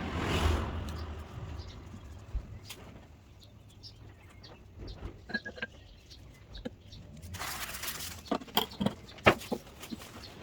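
Small clicks and taps of metal brake caliper parts being handled, with a short hissing burst at the start and another about three-quarters of the way through.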